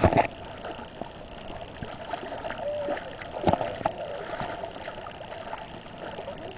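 Shallow seawater sloshing and lapping around people wading, with a louder splash at the start and another about three and a half seconds in.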